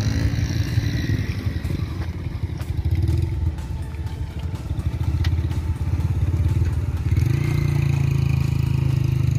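Small commuter motorcycle engine running close by as the bike rides slowly over a rough dirt track. About seven seconds in it settles into a steady idle as the bike stops.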